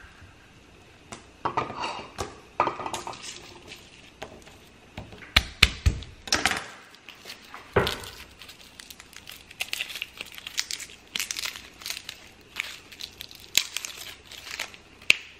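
Dry, papery garlic skins crackling and tearing as cloves are peeled by hand, in quick irregular crackles. There are a few louder knocks, about five and a half and eight seconds in.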